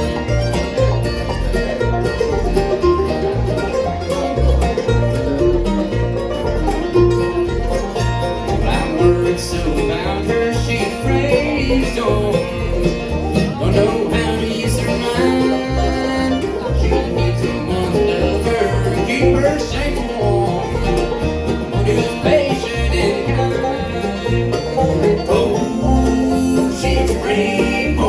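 Bluegrass-style string band playing an instrumental passage: plucked strings over a steady, even beat, with no singing.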